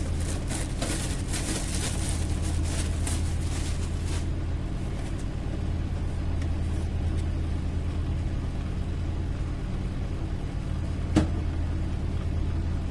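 Rustling and crackling of packaging as a new computer power supply is unboxed, over a steady low hum, with one sharp click near the end.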